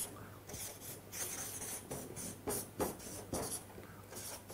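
Marker pen drawing lines on a chart board: a run of short scratching strokes of uneven length.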